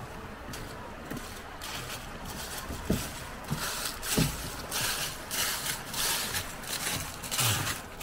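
Footsteps crunching through dry fallen leaves on a footbridge, about two steps a second, getting louder as the walker comes closer, with a few low thumps partway through.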